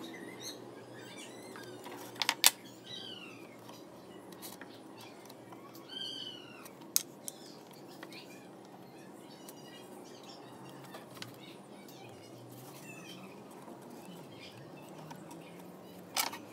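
A few sharp clicks and knocks of small twig wall sections being set and pressed onto a wooden board, the loudest about two and a half seconds in. Short high chirping animal calls sound now and then in the background.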